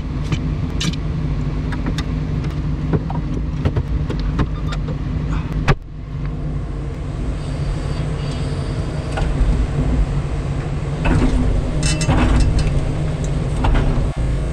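Kobelco 350 excavator's diesel engine running steadily, heard from the cab, with scattered clicks and knocks as the boom moves the hydraulic hammer into position. A sharp knock comes about six seconds in.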